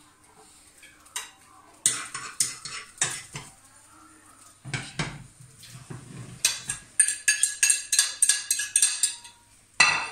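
A utensil clinking and scraping against a ceramic plate and frying pan: scattered knocks at first, then a quick run of ringing taps, about four or five a second, in the last few seconds.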